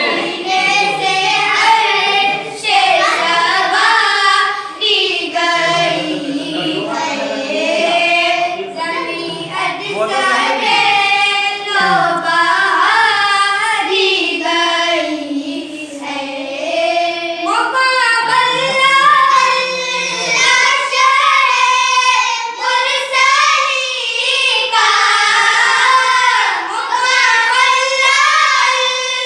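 Children's voices singing a naat, a devotional Urdu poem in praise of the Prophet, in a flowing melismatic melody without instruments; the melody steps up to a higher pitch a little past the middle.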